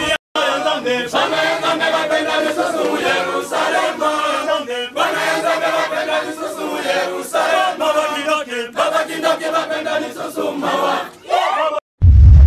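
A church choir and crowd singing together in phrases with short breaks. Near the end the singing cuts off and a music jingle with heavy bass begins.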